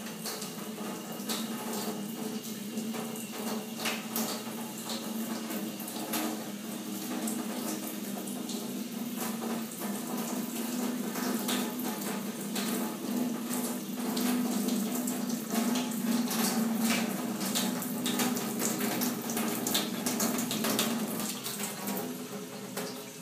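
Water running steadily from a faucet into a stainless steel sink and down the drain, with scattered clicks.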